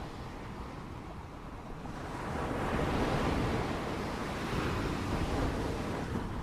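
Surf on the shore: a wave swells in about two seconds in and slowly washes back, with wind rumbling on the microphone.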